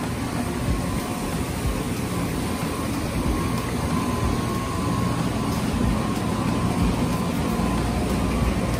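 Steady low rumbling background noise with a faint steady hum, with no distinct events.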